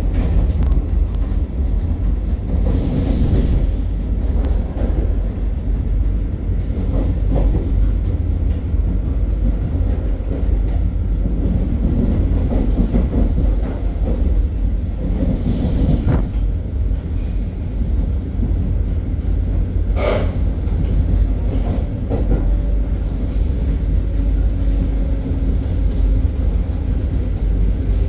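Vande Bharat Express electric train set running at speed, heard from on board: a steady rumble of wheels on rail with a rushing noise, and a few brief clacks around the middle.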